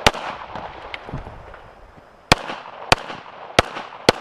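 Handgun shots: one right at the start, then after about two seconds a string of four shots about half a second apart, each sharp and loud with a short echo.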